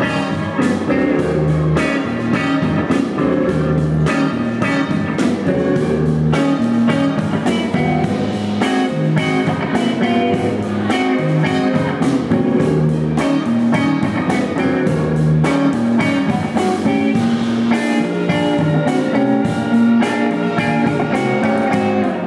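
Rock music with guitar, a bass line and drums keeping a steady beat.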